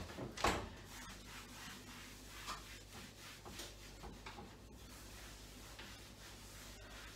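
Two light knocks of objects being handled, then soft rubbing and small scattered clicks, as of a cloth wiping a surface.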